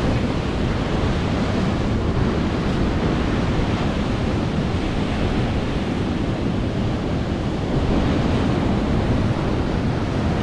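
Ocean surf breaking and washing over coastal rocks, a steady rushing roar, with wind buffeting the microphone.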